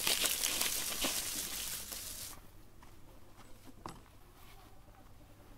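Heap of paper-twist snappers (bang snaps) pouring out of a plastic bowl onto a wooden stump: a dense rustling patter for about two seconds, then a few scattered light clicks.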